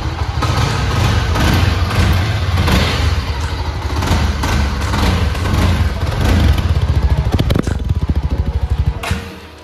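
Motorcycle engine running with a steady low pulsing beat, with a brief rise in pitch near the end before the sound falls away.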